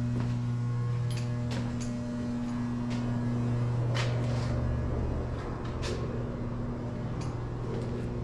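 A steady low electrical hum with a fainter, higher overtone, and a few sharp clicks and scuffs scattered through it.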